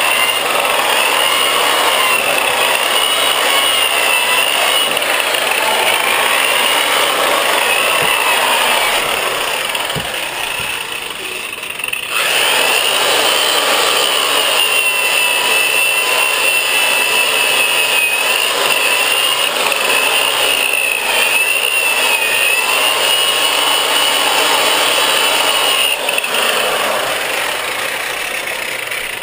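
Milwaukee 5540 sander/polisher with a foam power pad and sanding disc, sanding the glassed surfboard: a steady motor whine over the grit grinding on the board, wavering in pitch as the pad is pressed and moved. Near the middle it drops off for a couple of seconds, then comes straight back up to speed.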